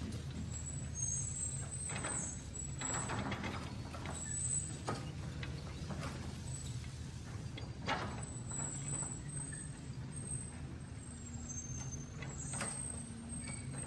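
Small electric motor of a radio-controlled tracked toy dump truck whining in short runs as its dump bed tips up, over a steady low hum, with scattered clicks and knocks.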